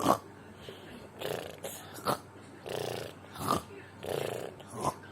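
A person snoring in a quick, exaggerated rhythm. A rattling snore alternates with a short, sharp snort, about one of each every second and a half, and the snorts are the loudest part.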